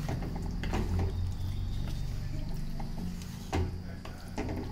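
Wooden spatula stirring thick paneer-and-mushroom gravy in an aluminium kadai, with a few short knocks of the spatula against the pan over a steady low hum.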